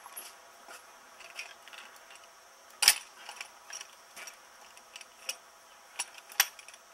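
Scattered metal clinks and clicks of a hand tool working on a steel pipe fitting, with the loudest clank about three seconds in and two more sharp ones near the end.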